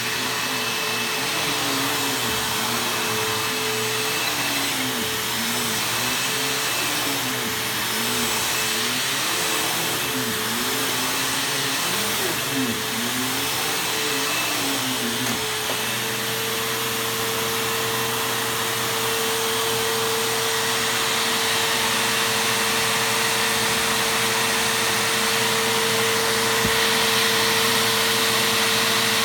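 Bissell bagless vacuum cleaner running steadily on carpet, a continuous motor hum with a steady whine.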